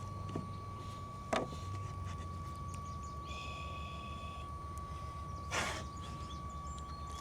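Small wood-stove fan running steadily, heard as a low hum with a thin, steady whine. Two short rustling noises break in, about a second and a half in and again near six seconds, with a brief buzz in between.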